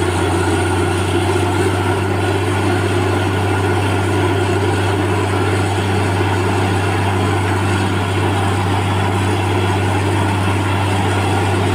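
Borewell drilling rig running steadily: a deep engine drone under the steady rush of water and rock cuttings being blown out of the bore and splashing against a sack over the hole. It is a heavy water flow, struck at about 60 feet.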